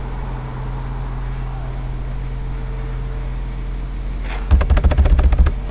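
Steady low electrical hum, then near the end about a second of rapid clattering computer keyboard clicks, the loudest sound.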